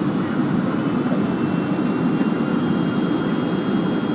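Steady cabin noise inside a Boeing 757 airliner: a dense, even rumble of jet engines and airflow, with a faint thin whine that slowly rises in pitch over the last few seconds.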